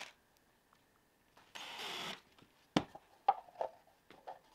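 A short whirr of a small power tool, then a sharp knock and a few lighter knocks and clicks as metal bottle-opener hardware is fitted to a wooden board; the knocks are the loudest sounds.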